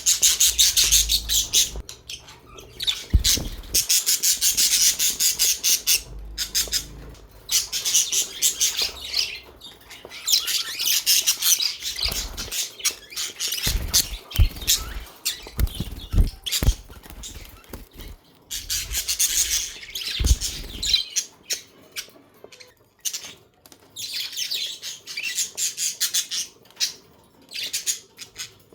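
A flock of budgerigars chirping and chattering in fast, dense bursts with squawks, swelling and fading in waves every few seconds. Low thumps come in among the chirping, mostly in the first two-thirds.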